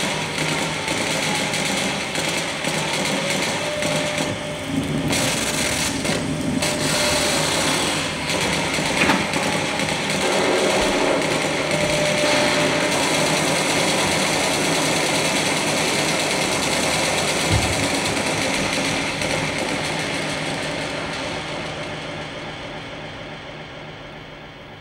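A steady, dense mechanical buzzing noise that fades out over the last few seconds.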